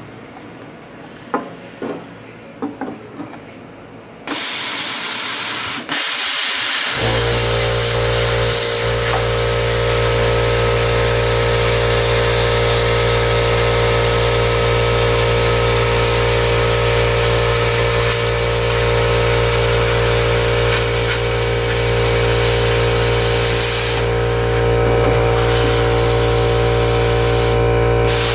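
Plasma cutter cutting the sheet-metal firewall of a 1967 Ford Mustang: a few knocks and clicks, then a hiss of air starts suddenly about four seconds in, and a few seconds later a steady hum joins it. The hum and hiss then run on evenly as the cut goes.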